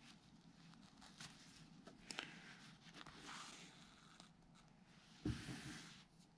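Faint rustling of wool and canvas being handled and thread drawn through the cloth during hand stitching, with a soft bump about five seconds in.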